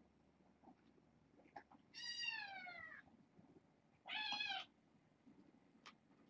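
Two kitten meows: a drawn-out one of about a second whose pitch falls, then a shorter one about two seconds later.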